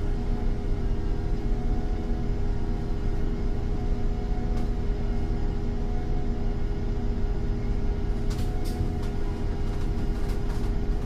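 Iveco Cursor 8 natural-gas inline six of an Irisbus Cityclass city bus idling with a steady, unchanging hum. A few brief clicks or rattles come about eight seconds in and again near the end.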